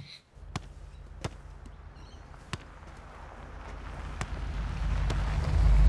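A soccer ball bouncing, about five separate thumps at uneven intervals, while a car engine draws near and grows steadily louder.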